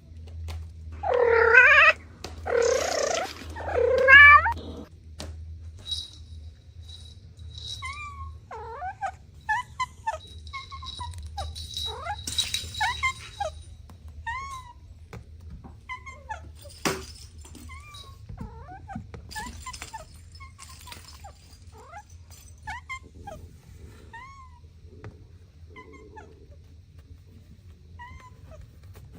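Cats meowing. Three loud, drawn-out meows come in the first few seconds, followed by many short, high-pitched kitten mews. A low steady hum runs underneath.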